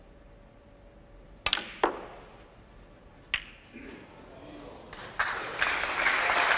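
Snooker balls clicking during a shot: two sharp clicks close together about a second and a half in, then a third click about a second and a half later. Audience applause starts about five seconds in and builds.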